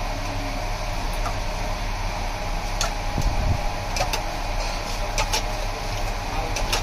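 Street-food stall ambience: a steady hum with several sharp metallic clicks scattered through, from a steel spoon against steel pots and trays as kachoris are topped with chutney.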